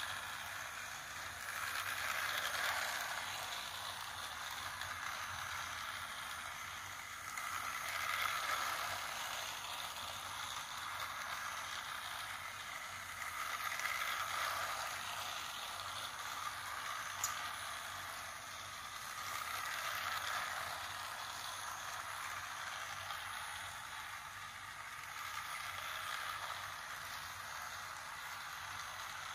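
Toy train running laps on a plastic track, a steady whirring rattle of its small motor and wheels that swells about every six seconds as it comes round close by, with one sharp click partway through.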